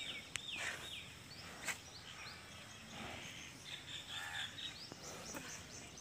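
Small birds chirping and calling over a low outdoor hiss, with a couple of sharp clicks in the first two seconds.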